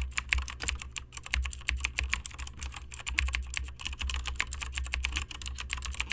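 Rapid typing on a keyboard: a dense, irregular run of key clicks, several to the second, over a steady low hum.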